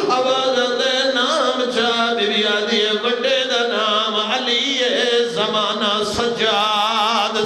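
A man chanting a mourning lament, the zakir's sung recitation at a majlis, in long quavering notes that waver up and down in pitch without a break.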